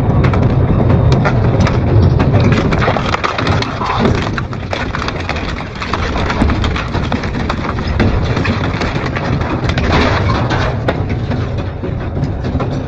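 Double-shaft industrial shredder grinding material, a continuous dense crunching and cracking over the low hum of the machine.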